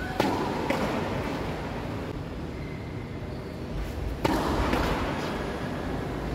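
Tennis ball impacts: two sharp knocks close together near the start and a louder one about four seconds in, over steady low background noise.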